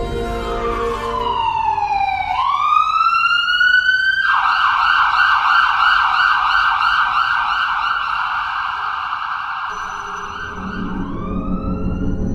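Ambulance's electronic siren sounding: a slow wail falling and then rising, switching after about four seconds to a fast up-and-down yelp, then rising into the wail again near the end.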